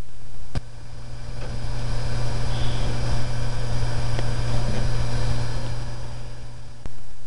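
Desktop computer running as it reboots: a steady low hum under a fan-and-drive whir that swells over the first few seconds and eases off near the end, with a sharp click about half a second in and another near the end.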